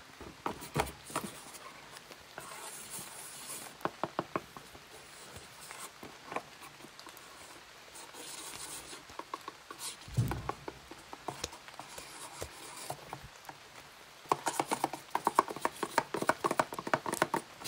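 Handmade paper crafts being handled: paper rustling and scratching, with scattered sharp taps and clicks of paper claw finger caps against a folded paper box. There is a soft thump about ten seconds in and a fast run of tapping near the end.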